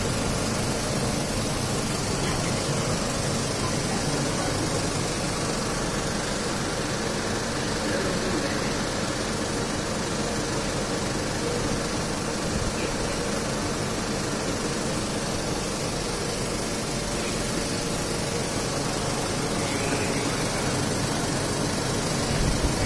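Steady mechanical hum under an even hiss, like a machine running continuously, with no distinct events.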